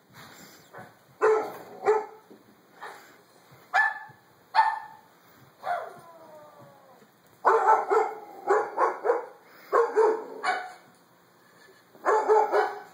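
Doberman barking in single sharp barks, then a drawn-out falling whine about six seconds in, followed by a quick run of barks.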